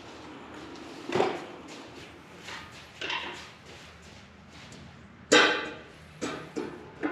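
Several separate clanks and knocks from the steel three-point quick hitch on a caster pallet dolly. The loudest comes about five seconds in, and three quicker ones follow near the end.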